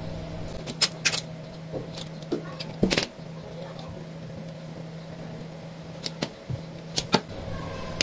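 Pliers and electrical wire being handled as two wire ends are stripped and twisted together: scattered sharp clicks, several in close pairs, over a steady low hum.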